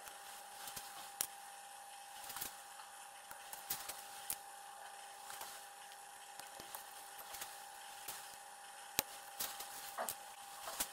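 Scattered sharp clicks and taps from handling small parts and wire at a workbench, at irregular intervals, with the loudest about a second in and about nine seconds in. A steady faint high whine runs underneath.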